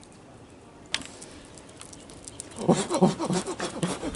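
Low background with a single sharp click about a second in, then indistinct voices that rise in level over the last second and a half.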